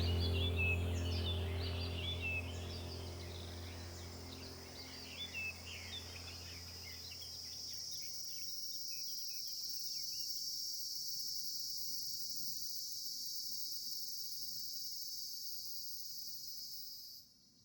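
Birds chirping and insects trilling steadily, with background music fading out over the first few seconds. The birdsong dies away about eight seconds in; the insect sound continues and cuts off suddenly near the end.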